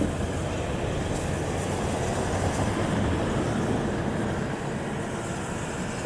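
Steam locomotive NM 25 rolling slowly on the track: a steady rumble of wheels on rail and running gear, a little louder about halfway through.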